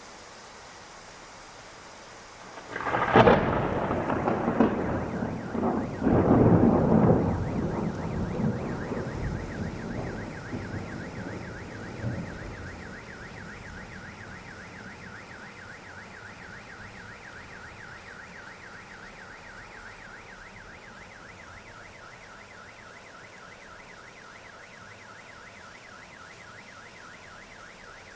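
Steady heavy rain, then a loud thunderclap about three seconds in that rolls on in rumbles for some ten seconds before fading. A faint, rapidly pulsing high tone continues under the rain afterwards.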